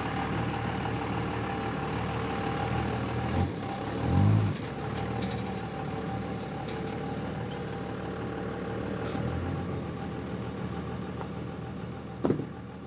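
A vehicle engine running steadily at idle, with a brief low swell about four seconds in and a sharp click near the end.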